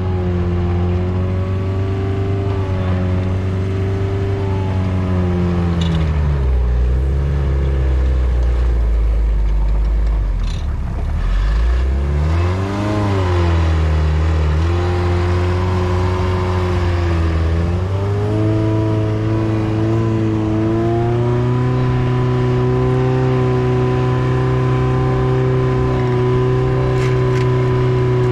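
Diesel engine of a tracked skid steer (a 2005 Takeuchi TL130 repowered with a 2.2 L Isuzu C223) running under load as the machine is driven. The engine speed sags and recovers several times and rises briefly around the middle, then runs steady at a higher speed for the last third.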